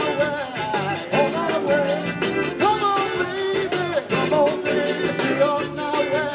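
A zydeco band playing live, with accordion, electric guitars and drums over a steady, even dance beat.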